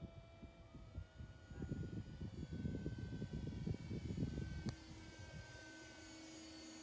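Brushless electric motor and propeller of an RC airplane whining in flight, a steady tone that rises a little in pitch about a second in. Wind buffets the microphone through the middle, and there is one sharp click near the end.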